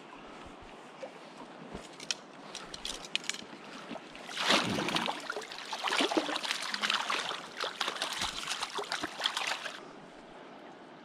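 River flowing steadily, with a few light clicks; about halfway through, a hooked brown trout thrashes and splashes hard at the surface as it is scooped into a landing net, for about five seconds before the water settles.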